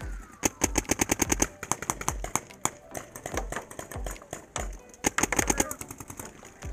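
Paintball markers firing rapid strings of shots, about ten a second, in several bursts with short gaps between them.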